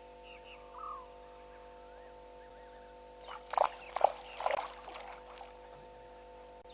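Lions at a waterhole: a short burst of loud, sharp sounds about halfway through, its three strongest strokes within a second, over scattered frog chirps and a steady electrical hum.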